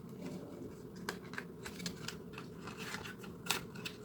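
Packaging being handled and unwrapped: irregular crinkling, rustling and small clicks.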